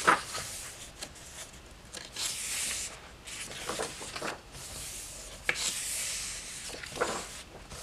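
Thick paper pages of a hardback coloring book being turned by hand, with several soft rustling swishes as each page sweeps over, and the light taps and rubbing of hands smoothing the pages flat.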